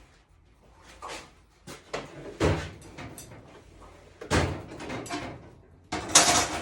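Knocks and clunks of a welded steel tractor frame being lifted and carried: several separate thumps, the loudest about two and a half, four and a half and six seconds in.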